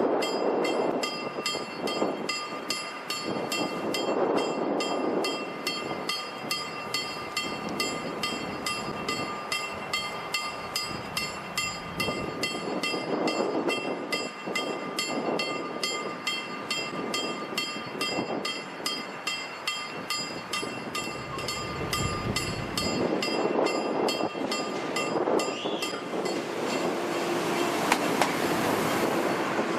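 Level-crossing warning bell ringing rapidly and evenly, signalling that the crossing is closed; it stops near the end as an EN63H electric multiple unit runs in over the rails.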